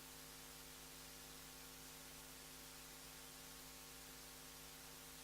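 Near silence: a faint, steady electrical hum with a soft hiss.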